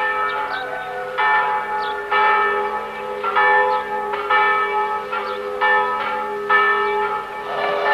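Bells ringing in a steady run of strikes, about one a second, each leaving a long ringing tone over a lingering hum.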